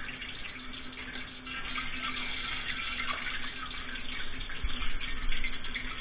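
Water running from a kitchen tap into a sink, splashing unevenly, with a faint steady hum underneath.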